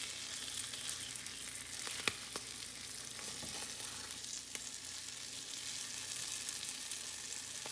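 Tilapia fillet frying in oil in a skillet, a steady sizzle, while a plastic slotted spatula scrapes garlic and seasoning around the fish, with a couple of sharp taps against the pan, the clearest about two seconds in.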